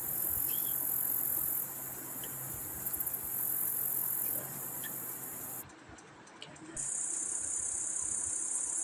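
High-pitched insect trilling, cricket-like, running continuously with a slight pulsing. It breaks off about five and a half seconds in and comes back about a second later at a slightly lower pitch.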